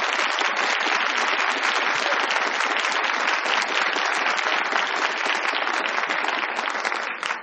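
Studio audience applauding: dense, steady clapping from many hands that stops near the end.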